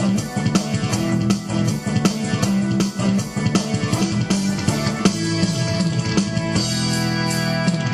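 Background music with a steady drum-kit beat over sustained chords.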